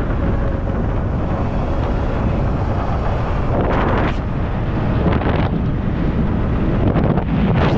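Wind buffeting the camera's microphone on a moving bike: a steady, loud rush, with stronger gusts about four, five and seven seconds in.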